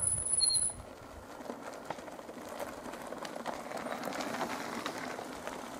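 Mountain bike tyres rolling and crunching over a gravel track as riders approach and pass close by. The noise is scattered with many small clicks and grows slowly louder, after a brief low rumble at the start.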